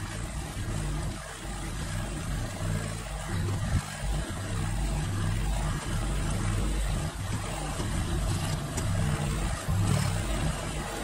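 Massey Ferguson GC1723E compact tractor's three-cylinder diesel engine running steadily as its front loader pushes fill dirt back into a trench, the engine note rising and falling a little with the load.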